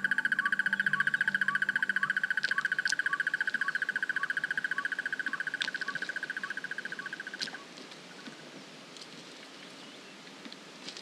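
A calling animal's loud, rapid, pulsing high trill, with a fainter chirp repeating about twice a second beneath it. The trill stops abruptly about seven and a half seconds in, leaving a faint natural background with a few scattered ticks.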